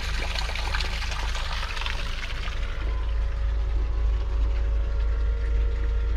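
Electric bilge pump running steadily with a low hum while water splashes and pours as it is pumped out of the flooded boat.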